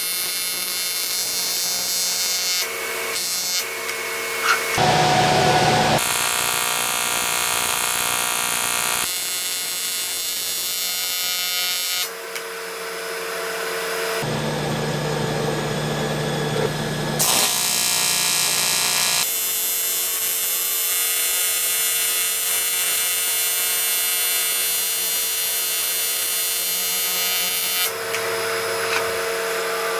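AC TIG welding arc on aluminum from an HTP Invertig 400 welder, buzzing steadily. Its pitch and tone change abruptly several times.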